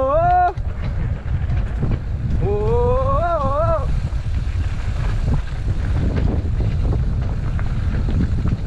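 Steady low rumble of wind and riding noise from an electric mountain bike on a trail ride. A person's wavering vocal call is cut off about half a second in, and another rising call comes about two and a half seconds in.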